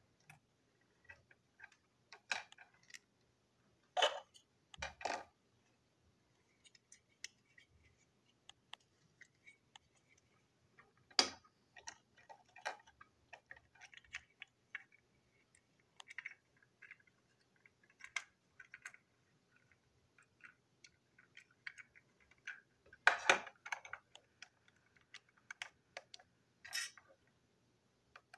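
Small plastic toy train coach parts (chassis and wheelsets) clicking and tapping as they are handled and fitted together, with a handful of louder knocks on the table.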